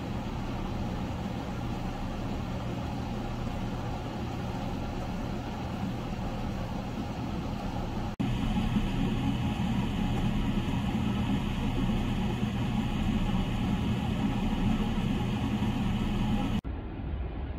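Steady low rumble of distant road traffic on snowy roads. It steps up in level about eight seconds in and drops again near the end as the recording cuts between shots.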